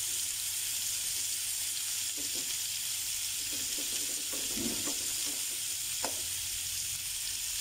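Mince meatballs sizzling in shallow oil in a nonstick pan, a steady frying hiss. A few soft clicks come from the fork turning them, the sharpest about six seconds in.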